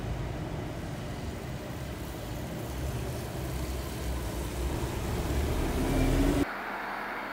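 Low rumble of a vehicle that builds steadily louder, with a rising whine in its last second, then cuts off abruptly about six and a half seconds in.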